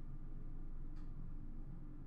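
Quiet room tone: a steady low hum, with one faint tick about halfway through.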